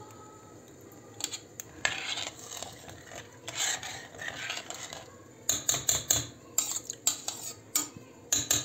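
A metal spoon stirring rice and water for pilaf in a stainless steel pot, swishing and scraping through the liquid. From about five and a half seconds in comes a quick run of sharp clinks of the spoon against the pot.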